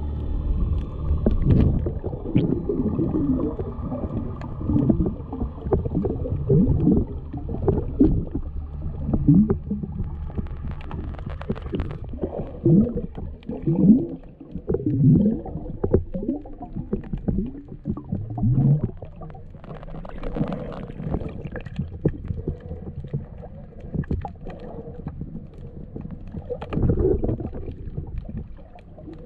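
Muffled underwater sound from a camera held below the surface: water gurgling and sloshing over the housing, with irregular low bubbling glides and surges.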